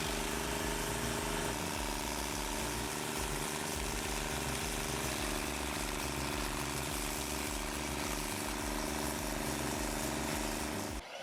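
An engine running steadily at constant speed, a continuous hum that holds one pitch and cuts off suddenly near the end.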